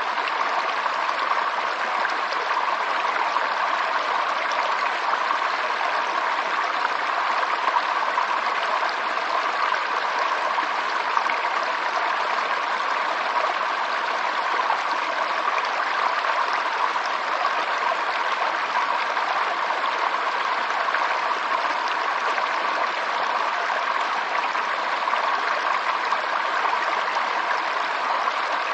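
Waterfall rushing with a steady, unbroken sound of falling water.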